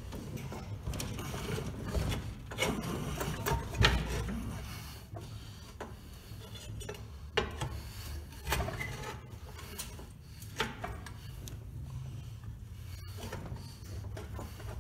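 Engine hoist lowering a Chevy 350 crate engine into a pickup's engine bay while a pry bar works it toward the mounts: scraping with irregular knocks, the loudest about four seconds in, as the engine is levered into place.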